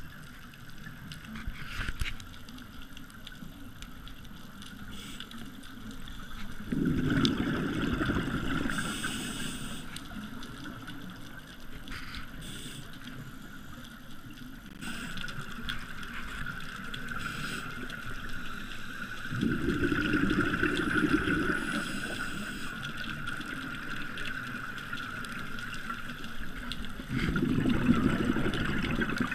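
Scuba breathing heard underwater: three bursts of exhaled bubbles from a regulator, a low gurgling rumble lasting two to three seconds each, spaced roughly ten seconds apart, with brief hissing inhalations between them. A steady high-pitched hum runs underneath throughout.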